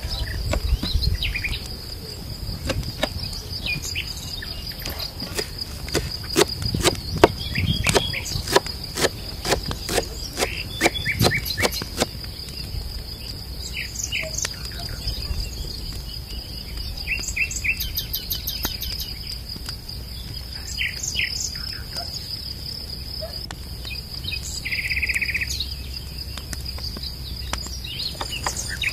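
Insects trilling steadily in a high, unbroken band, with scattered short bird chirps. Over the first half comes a run of sharp knocks, roughly one or two a second, which are the loudest sounds.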